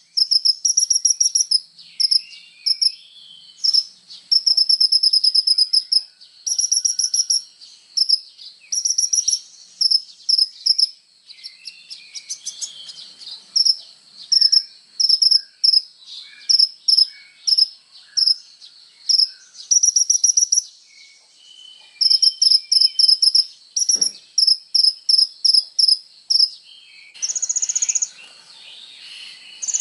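A kolibri ninja sunbird singing: bursts of rapid, very high-pitched chirping trills repeated with short pauses, with a denser buzzy trill near the end. A faint steady high drone, like crickets, runs underneath.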